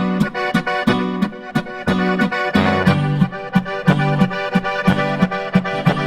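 Instrumental music with a steady beat; a sustained reed melody that sounds like an accordion carries the tune over a repeating bass line.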